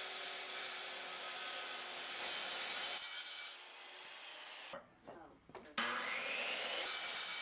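Corded circular saw cutting through a plywood board, in two stretches of steady cutting with a short break of about a second in the middle.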